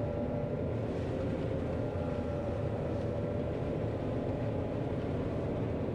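Steady drone of a John Deere 9500 combine running while harvesting soybeans, heard from inside the cab, with a few steady whining tones over the low rumble of the engine and threshing machinery.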